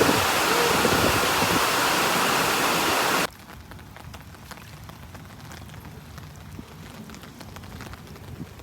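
Loud steady rushing noise, with no tone in it, that cuts off abruptly about three seconds in. It leaves only a faint crackling patter of small ticks.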